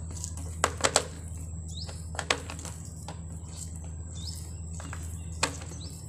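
Sharp plastic clicks and creaks from a corrugated washing-machine drain hose being pushed and fitted into a hole in a soft tub lid: three close together near the start, single ones later. A bird gives a short rising chirp about every two and a half seconds over a steady low hum.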